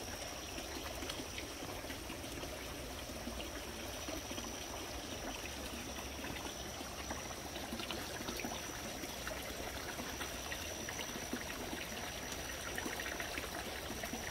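Garden pond fountain: a thin stream of water from a spouting statue splashing and trickling steadily into the pond. A steady high-pitched tone sits above it.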